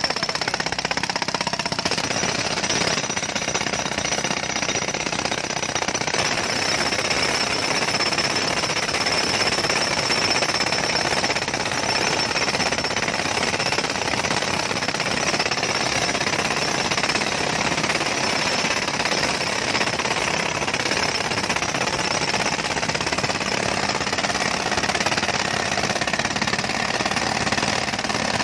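Jackhammer (pneumatic road breaker) hammering continuously into a road surface, a steady rapid hammering without pause.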